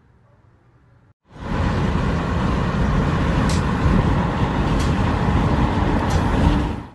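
Loud, steady rush of wind and road noise from a car driving with its window open, starting suddenly about a second in.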